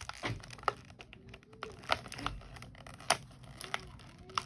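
Tape being picked at and peeled off a cardboard toy box, with crinkling packaging and a few sharp clicks and cracks scattered through.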